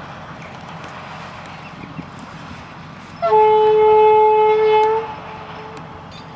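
Horn of an LDH45 diesel-hydraulic shunting locomotive sounding one steady, clear blast of a little under two seconds, about halfway through, over a steady background rumble.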